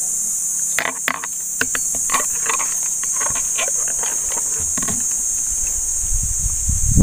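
Steady high-pitched insect chorus, with leaves and twigs rustling and snapping in short crackles as branches are pushed aside, and a low rumble near the end.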